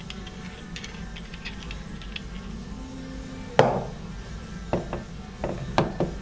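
Metal engine parts clinking and knocking as the clutch is fitted: light clicks, then a loud metallic clank with a brief ring about three and a half seconds in, followed by a few sharper knocks.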